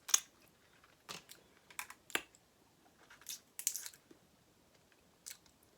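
Eating a seafood boil: scattered sharp clicks and crackles of shellfish shells being cracked and peeled and of mouth-eating sounds, about eight in all, the loudest right at the start.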